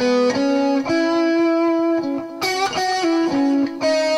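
Electric guitar playing a single-note blues turnaround lick in E, one note after another with string bends that glide the pitch up, a few of them near the middle.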